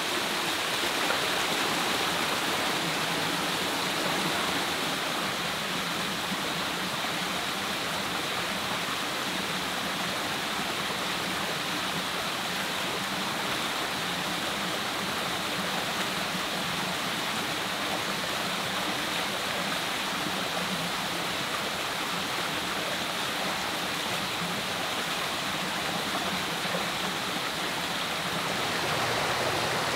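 Rocky forest stream running over small cascades: a steady rush of water.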